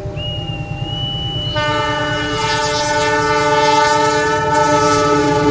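Air horn of a CC206 diesel-electric locomotive sounding one long, loud multi-tone blast, starting about a second and a half in. Under it runs the low rumble of the approaching train.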